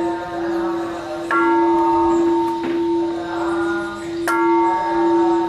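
Large pagoda bell struck with a wooden striker, twice, about three seconds apart. Each strike rings out over a long, wavering hum that carries on between strikes.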